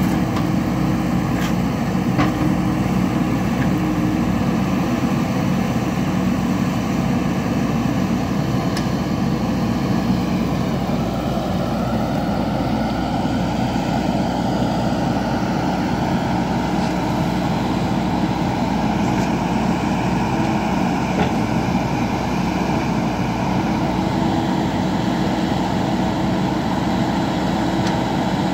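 JCB backhoe loader's diesel engine running under work, with a steady note that shifts in pitch about halfway through, and a few light clinks.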